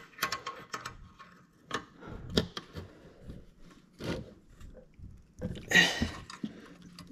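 Small metallic clicks and knocks of a hand tool tightening the connecting rod cap bolts inside an open small-engine crankcase, with a louder rasping burst a little before six seconds in.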